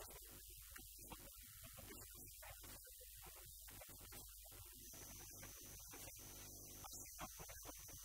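Near silence with a steady low electrical mains hum.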